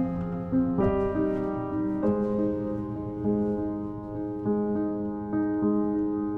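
Soft background piano music, a slow melody of held notes changing about once a second.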